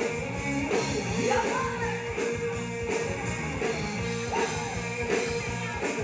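Live rock band playing: a singer over electric guitars and a drum kit keeping a steady beat.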